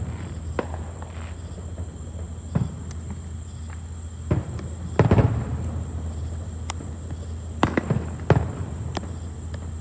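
Consumer fireworks going off: about nine sharp bangs at uneven intervals. The loudest, about five seconds in, trails off in a ringing rumble, and a quick pair follows near the end.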